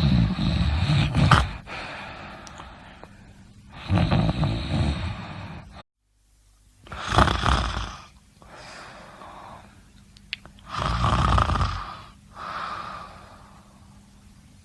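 A sleeping person snoring: a loud snore about every three to four seconds, with quieter breathing in between. The sound cuts out completely for a moment about six seconds in.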